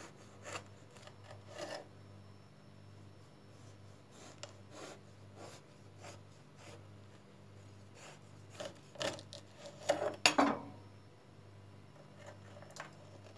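A knife sawing through a cake and scraping against a wooden cutting board, in scattered rasping strokes, with the loudest cluster of scrapes about ten seconds in.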